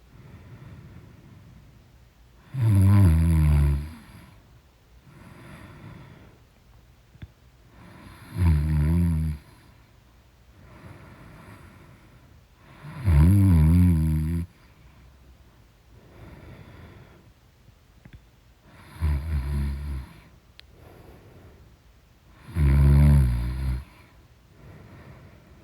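A woman snoring loudly in her sleep: five long snores about five seconds apart, with quieter breathing between them.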